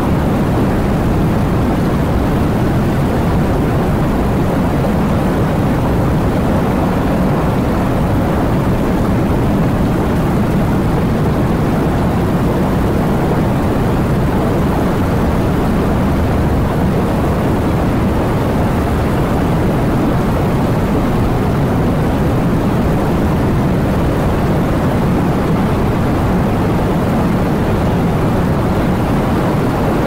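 Heavy rain falling steadily: a dense, even rush of noise weighted toward the low end, with no breaks or changes.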